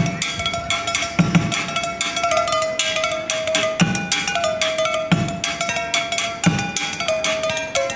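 Percussion-led music: a low drum struck about every second and a half under fast, light clicking strokes, with a held melody line that steps in pitch.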